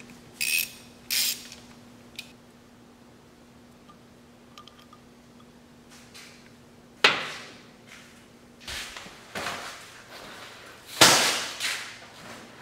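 Metal tools and parts handled while draining a dirt bike's oil: two short clinks in the first second or so, then a steady low hum, a sharp knock with a ringing tail about seven seconds in, and a louder clatter about eleven seconds in.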